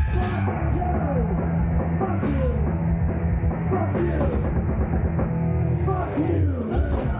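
Thrash metal band playing live at full volume: distorted electric guitars and bass over a drum kit, heard close to the stage, with a bright crash about every two seconds.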